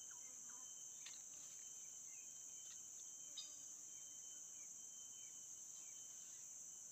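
Insects shrilling steadily in one continuous high-pitched drone, with a few faint short chirps scattered over it.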